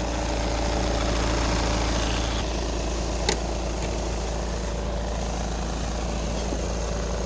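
Skoda Yeti's engine idling steadily, with a single brief click about three seconds in.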